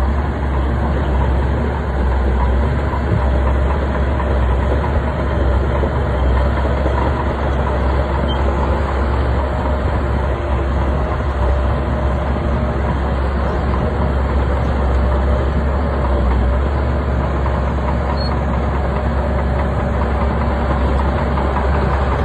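Bulldozer's heavy diesel engine running loud and steady without letup.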